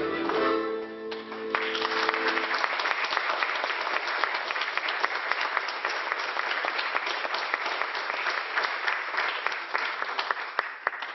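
Irish jig music ends on a held final chord about two seconds in. Audience applause starts over it and carries on steadily.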